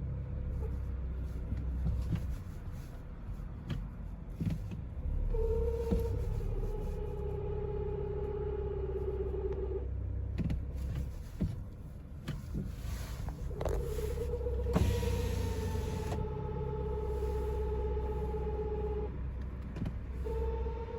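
Abnormal whine from the DSG mechatronic unit of a 2017 Volkswagen Golf Touran: a steady mid-pitched whine that comes on and cuts off in stretches of several seconds, over the car's low rumble. The owner finds it most often with the engine warm and the clutch slipping, as on hills, and it returned after the clutch set was replaced.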